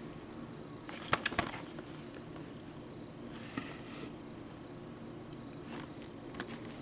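Hands handling a plastic Blu-ray case: two sharp clicks a little over a second in, then a soft rubbing of plastic and a few faint taps, over a low steady room hum.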